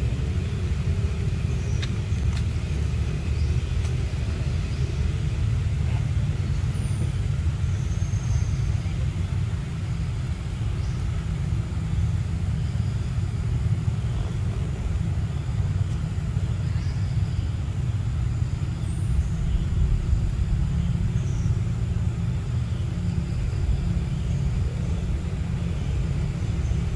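Steady low rumble, with a few faint, brief high chirps.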